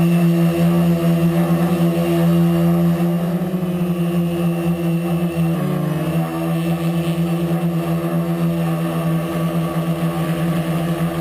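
Crossfire 2 quadcopter's four electric motors and propellers running in flight with a loud, steady hum, heard close up from a camera mounted on the frame. The pitch wavers and shifts for a couple of seconds around the middle as the throttle changes, then holds steady again.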